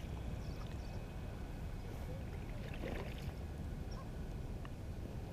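Steady low wind rumble on the microphone, with faint scattered ticks and a short rustle about three seconds in.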